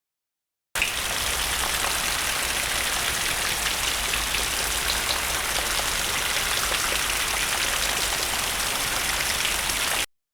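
Rain sound effect: a dense, steady hiss of rainfall with fine drop patter, starting abruptly about a second in and cutting off sharply just before the end.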